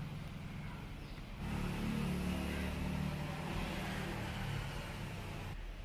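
Low rumble of a motor vehicle's engine, getting louder about a second and a half in and easing off near the end.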